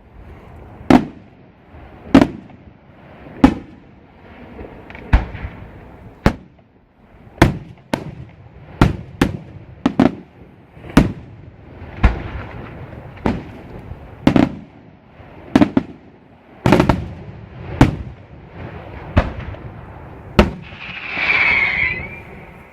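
Aerial firework shells bursting in a steady sequence, a sharp bang about every second, each followed by a brief rumbling echo. Near the end a high wavering whistle sounds for about a second.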